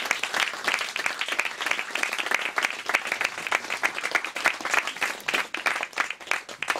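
A small audience applauding, many hands clapping at once, dying away near the end.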